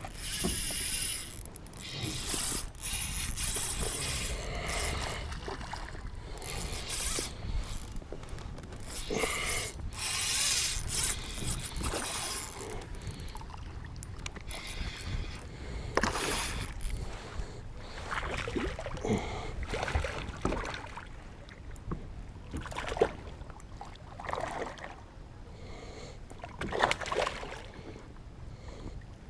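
Water splashing and fishing gear being handled aboard a kayak, with bursts of hiss and scattered knocks and clicks.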